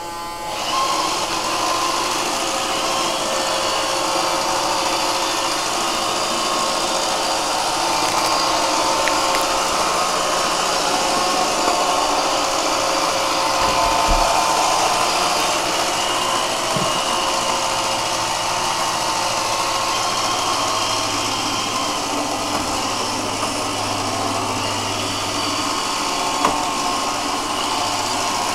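iRobot Roomba 551 robot vacuum running a cleaning cycle: a steady whir of its vacuum motor and brushes, with a constant hum running through it.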